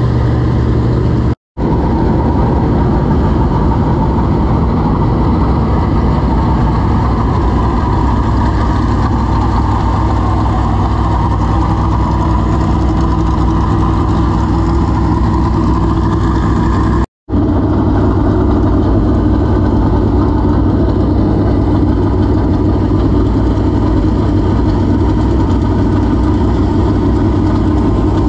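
Dirt super late model race car V8 engine running at a loud, steady idle, dropping out for a moment twice.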